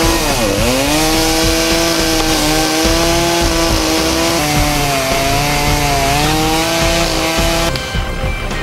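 Two-stroke chainsaw running at high revs while cutting through a fallen tree's trunk. Its pitch dips sharply under load about half a second in and then recovers, and it stops near the end.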